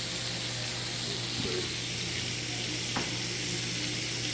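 Flour-battered shrimp frying in hot oil in a skillet, a steady sizzle over a low hum, with a light click about three seconds in.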